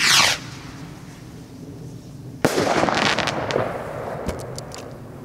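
A firework rocket launches with a short whoosh that falls quickly in pitch, then about two and a half seconds later bursts with a sharp bang that echoes away, followed by a few faint crackles.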